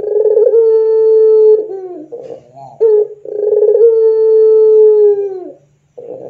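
Puter pelung (Barbary dove) cooing in its long drawn-out style: a steady held note of about a second and a half, a short broken phrase, then a longer held note of over two seconds that sags in pitch at its end.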